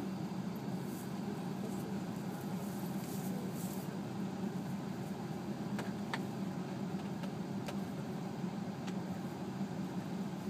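Steady low hum of a vehicle idling, with a few faint clicks in the middle.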